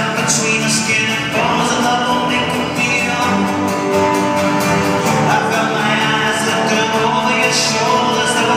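Live band playing a folk song on acoustic guitar, electric guitar and upright double bass, heard from the audience of a concert hall.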